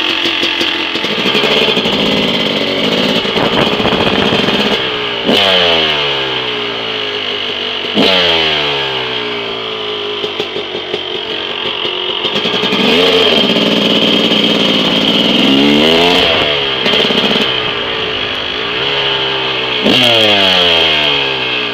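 Yamaha YZ250 two-stroke dirt bike engine revving under load in second gear. The throttle is opened and shut several times, so the revs climb and then fall away sharply. The owner says it runs a bit boggy because it is nearly out of fuel.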